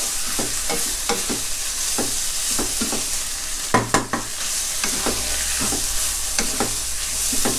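Pork belly and curry paste sizzling in a nonstick wok while a wooden spatula stirs and scrapes it, knocking against the pan two or three times a second, with a couple of louder knocks about four seconds in.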